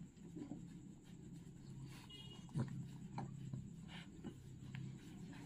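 Faint scuffing of a towel being rubbed over a dog's coat, with a few soft knocks and shuffles over a low steady hum.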